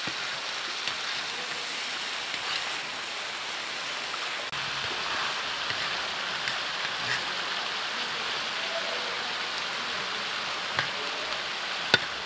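Sliced carrots, onions and tomatoes sizzling steadily in hot oil in a large plov cauldron (kazan), with scattered small pops and a sharp click near the end.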